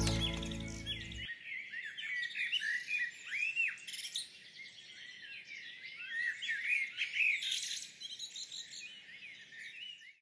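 Music fades out in the first second or so, leaving small birds chirping and singing: many short, overlapping calls and arched chirps.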